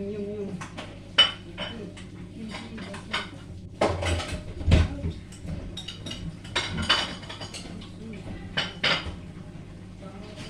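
Dishes and metal cutlery being handled, clinking and knocking against each other in an irregular string of sharp clinks and knocks, a few louder around the middle, over a low steady hum.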